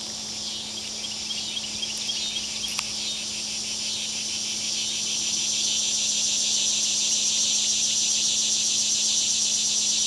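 Insect chorus: a dense, rapidly pulsing high buzz that swells louder over the first few seconds and then holds steady, over a faint steady low hum.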